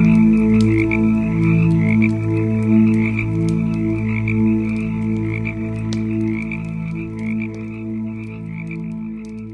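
A chorus of frogs croaking in low, overlapping pulses, over the faint crackle of a wood fire. The whole sound slowly gets quieter over the last few seconds.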